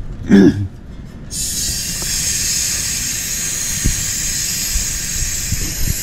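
Steady hiss of refrigerant gas escaping at a gauge hose or valve, starting suddenly a little over a second in.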